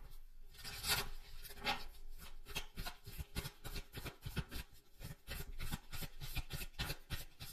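Tarot cards being shuffled and handled: a steady run of quick, soft rubbing and flicking strokes, several a second.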